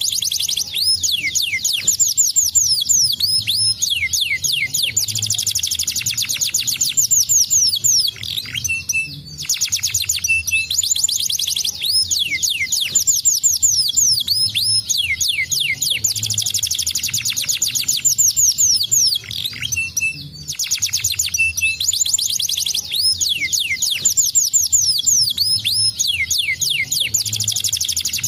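Domestic canary singing a long, fast song of rapid trills and quick downward-sweeping notes, broken by two short pauses, about a third and two-thirds of the way through.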